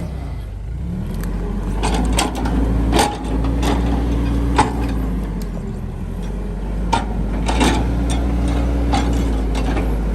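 A motor running steadily, its pitch dipping and rising, with scattered clicks and knocks.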